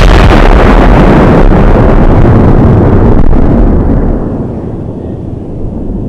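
Very loud bomb explosion sound effect: the blast's rumble holds at full loudness, then starts dying away about four seconds in.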